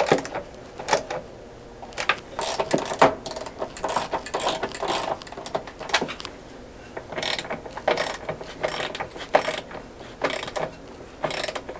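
Socket ratchet driving the washer drain pump's mounting screws back into the plastic housing, in short bursts of ratcheting clicks with brief pauses between.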